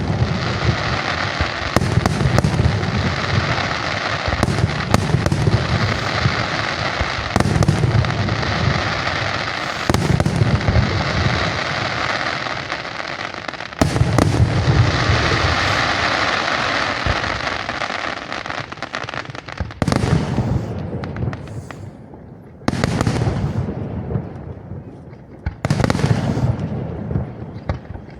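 Aerial fireworks going off in a rapid, continuous barrage of bangs and crackling, thinning after about twenty seconds to a few separate loud bursts.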